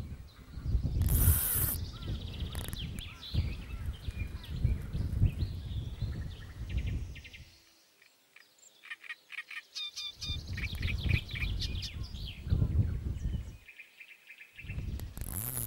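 Birds chirping and calling, over a low rumble of wind on the microphone that drops away twice. There is a short hiss about a second in.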